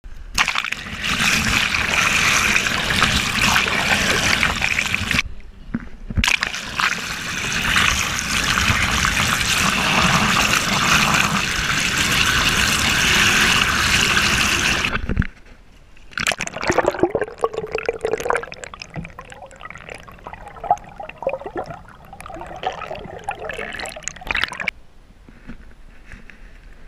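Water rushing and sloshing over a GoPro mounted at the waterline of a moving kayak hull, loud and steady for about fifteen seconds with a brief break around five seconds in. It then drops to quieter, uneven trickling and splashing.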